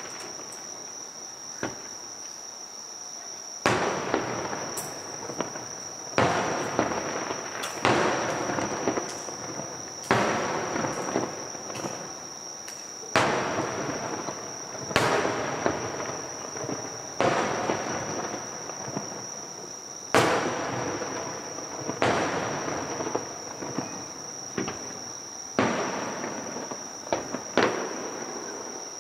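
Aerial fireworks shells bursting one after another, about a dozen sharp booms roughly every two seconds after a quieter opening few seconds. Each boom trails off in a long rolling echo.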